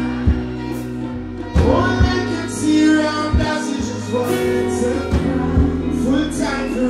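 Live reggae band music over a PA: a heavy bass line and drum beat with a man singing into a microphone.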